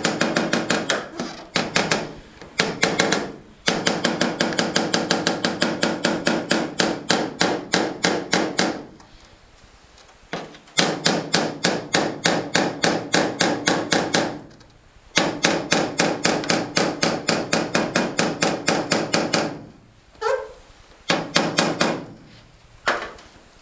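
Body hammer tapping out dents in a thin aluminum canoe hull with no dolly behind it. The taps come quickly, about five a second, in runs of several seconds with short pauses. The hull rings after each blow.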